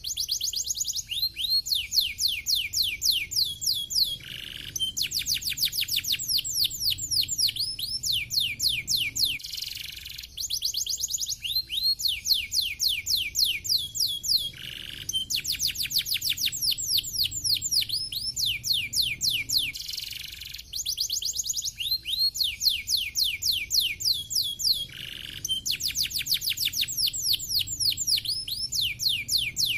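Domestic canary singing: long runs of rapid, high trilled notes that each slide downward, broken by short pauses every few seconds.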